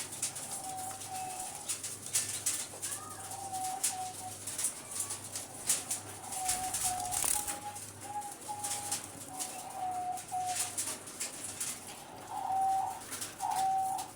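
Pied diamond doves cooing: a run of short, steady-pitched coos, with two louder coos near the end, over frequent light clicks and rustles.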